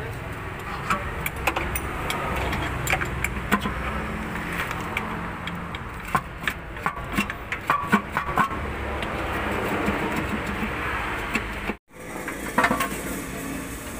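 Hand tools clicking and clinking against steel under a car as bolts on the underside are worked loose with a socket wrench, over a steady low hum.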